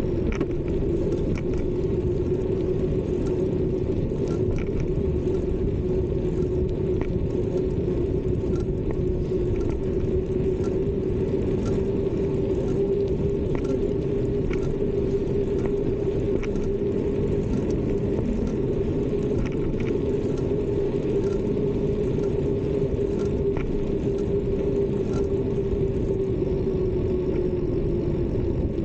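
Bicycle riding along a paved path: a steady rumble of wind on the camera and tyres on the pavement, with a constant hum that dips slightly near the end and scattered small rattles from the bike.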